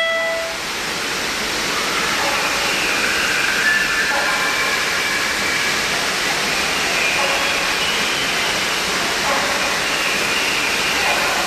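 Steady rushing of water from the indoor jungle exhibit's artificial waterfall or stream, with faint voices talking over it now and then.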